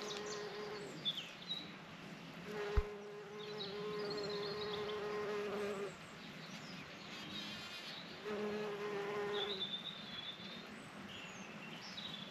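A bumblebee buzzing close by in flight, a steady even-pitched drone that comes and goes three times as it passes near: about a second at the start, a long stretch of three seconds, then another of a second and a half. Faint bird chirps sound between the passes.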